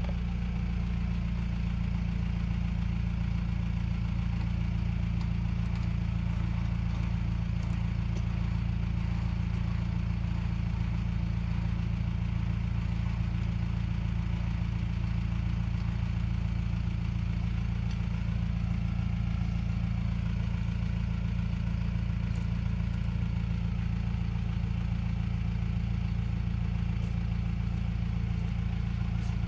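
Mahindra Roxor's four-cylinder turbo-diesel engine idling steadily, just started, with no change in pitch.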